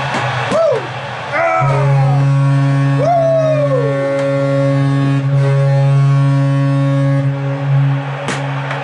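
Hockey goal horn sounding one low, steady tone for about seven seconds, starting about a second and a half in and cutting off near the end. A few short rising-and-falling whooping cries sound over its start.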